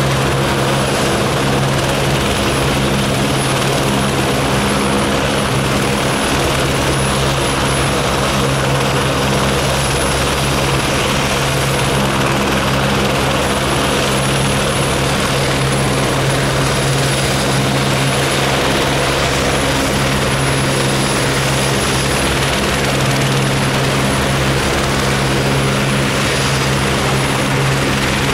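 Helicopters running on the ground before lift-off, their engines and rotors making a loud, steady drone that holds the same level and pitch throughout.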